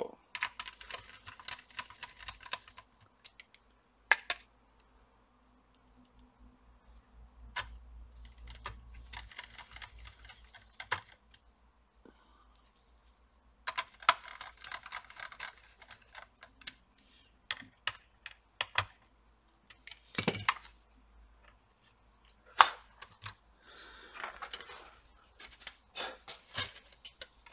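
A small hand screwdriver driving screws back into a laptop's chassis: bouts of fine clicking and rattling, with a few single sharp taps of the tool against the case.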